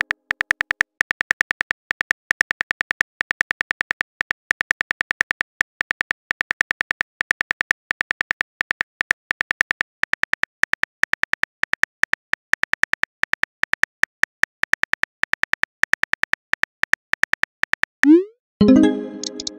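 Simulated phone-keyboard typing clicks: a fast, uneven run of sharp, slightly pitched ticks, several a second, as a text message is typed. Near the end a short rising whoosh marks the message being sent, followed by a brief pitched tone that fades.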